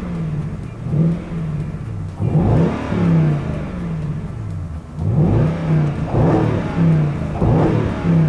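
Jaguar XK 4.2 V8 engine running through Supersprint aftermarket rear mufflers, heard from inside the cabin. The revs rise and fall several times, with a few quick upward sweeps in pitch.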